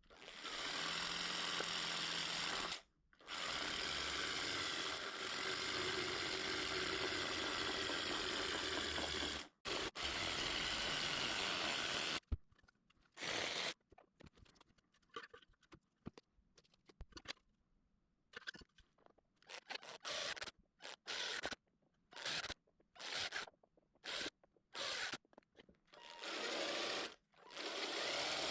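Power tool work: a tool running steadily in three long stretches, cut off abruptly each time, then a quick series of short bursts.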